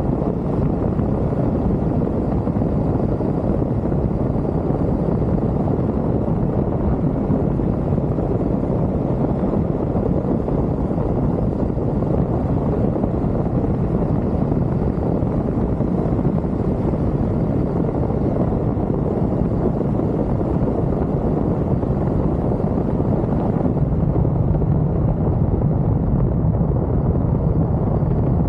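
Triumph Tiger three-cylinder motorcycle under way: a steady engine drone mixed with wind rush on the microphone. The low engine note grows a little stronger about 24 seconds in.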